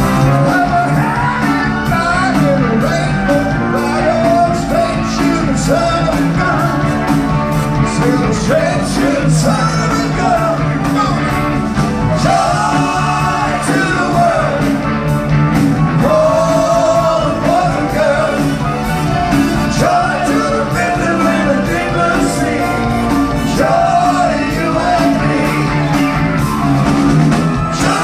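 Live rock band playing with a lead singer over guitars, keyboards and drums, with a steady beat, heard from the audience.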